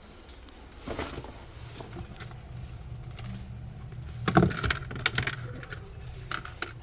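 A few sharp knocks and rattles, loudest about four seconds in, over a steady low hum.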